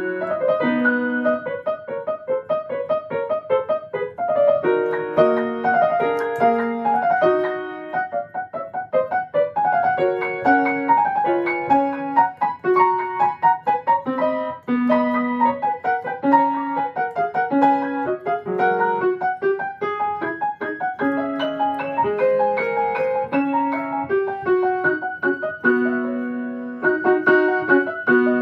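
Grand piano played in practice, fast continuous passagework with many quick notes across both hands.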